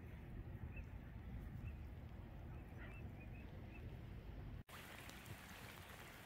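Low wind rumble on the microphone at the waterside, with about half a dozen faint short bird calls. About two-thirds of the way through, the sound cuts abruptly to a different, hissier outdoor ambience.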